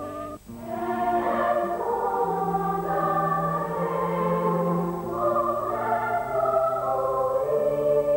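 A choir singing long, held chords, the music for a TV channel ident. The chord changes every second or two, and there is a short break about half a second in.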